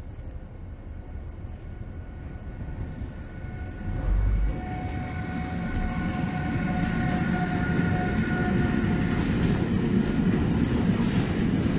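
Siemens Vectron electric locomotive approaching and passing close, its traction motors whining in several steady tones, followed by the low rumble of container wagons rolling past, growing louder toward the end. A brief low buffet about four seconds in as the locomotive reaches the microphone.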